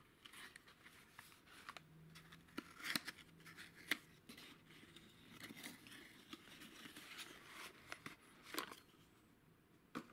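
Quiet rustling, scraping and crisp ticks of an old cardboard valve box and its inner card sleeve being opened by hand and the glass valve slid out, with sharper clicks about three and four seconds in and again near the end.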